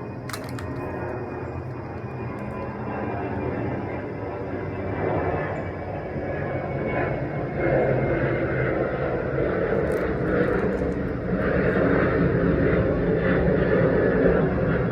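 Airplane flying overhead: a steady engine noise that grows louder, stepping up about halfway through.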